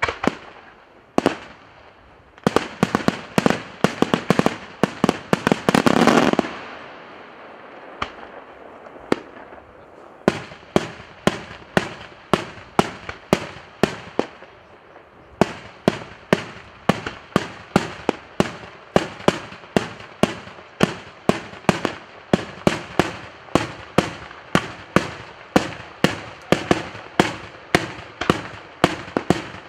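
Daytime aerial fireworks shells bursting. A fast run of bangs a couple of seconds in builds into a continuous roar that stops suddenly, then a few scattered bangs. From about halfway, bangs come regularly at about two a second.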